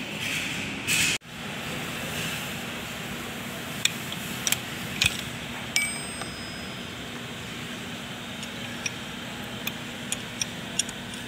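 A steel tool clicking and clinking against a tractor's front axle housing and bevel pinion, about a dozen sharp metallic ticks, one near the middle ringing on briefly like a small bell. A steady low hum lies underneath.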